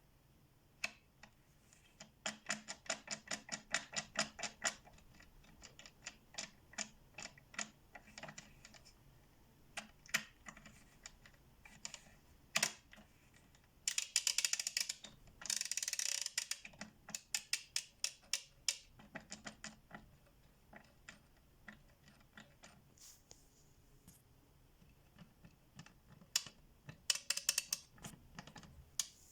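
Hand ratchet's pawl clicking over its toothed gear as the handle is swung back, in runs of quick clicks with pauses between. There is a denser, faster run of clicking about halfway through.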